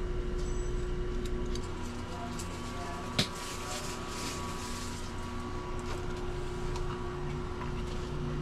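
Window air conditioner running with a steady hum, broken by a single sharp click about three seconds in.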